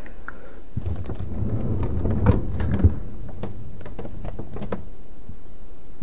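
Rummaging in a refrigerator: a run of clicks, knocks and rustles as plastic crisper drawers and packaged food are handled. Two sharper knocks come a little over two seconds in, about half a second apart, and the clicking dies away near the end.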